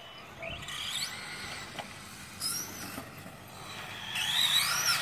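Radio-controlled cars' motors whining, rising and falling in pitch as they speed up and slow through the turns, louder near the end as the cars come close.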